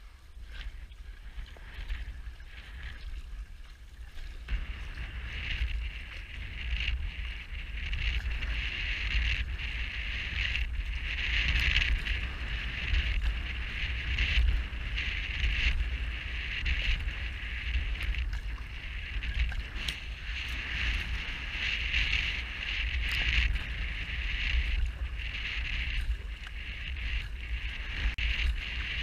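Wind buffeting the microphone with a low rumble, over a steady hiss of water rushing and splashing along a V1 outrigger canoe being paddled into the wind; the water hiss grows louder about four to five seconds in.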